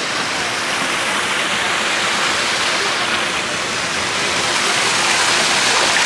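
Steady rushing and splashing of pool water, building slightly, with a few light splashes near the end as feet wade through the shallow water.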